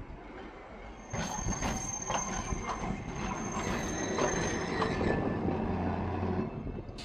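Hankai Tramway streetcar No. 351 passing close by at low speed. Its wheels clack over the rail joints several times, and a thin high squeal runs along for a few seconds, with a low hum near the end as the car goes by.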